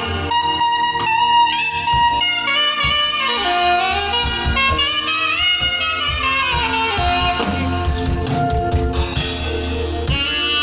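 Saxophone playing a slow worship melody, sliding between held notes, over a bass line and light percussion.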